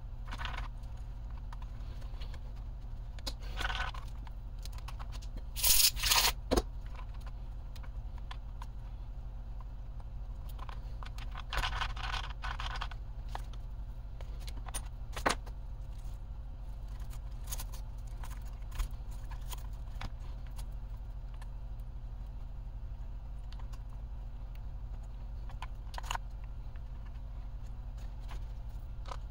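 Handling noises from a plastic RC car chassis being turned over and set down on a workbench: scattered scrapes, clicks and knocks, loudest as a short clatter about six seconds in and a rustling scrape around twelve seconds, over a steady low hum.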